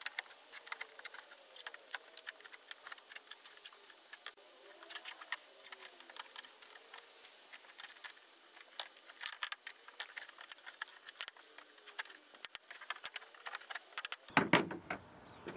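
Irregular crackling and clicking as the factory rear spoiler is pried and pulled up off the trunk lid, its 3M double-sided tape tearing loose a little at a time.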